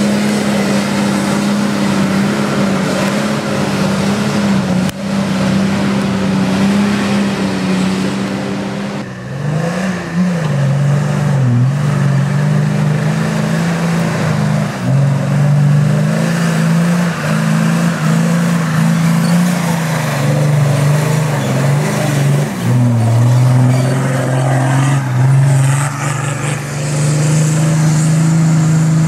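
Nissan Patrol 4x4 engine working hard under load off-road. Its pitch holds steady for the first nine seconds or so. After that it revs up and down repeatedly as the throttle is worked.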